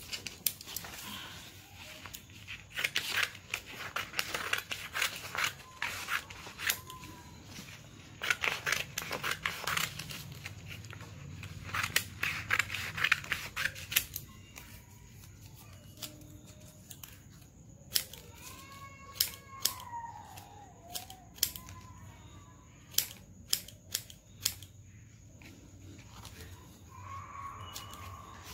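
Scissors snipping green paper into small pieces: quick runs of snips in bursts through the first half, then scattered single snips.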